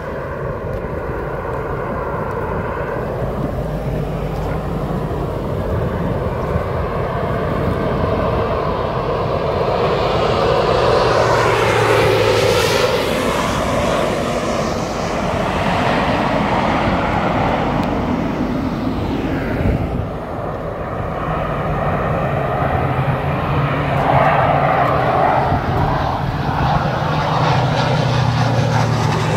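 Single-engine firefighting floatplane scooping water from the river: its propeller engine runs steadily, swells to a loud close pass about twelve seconds in, and builds again near the end as it heads off.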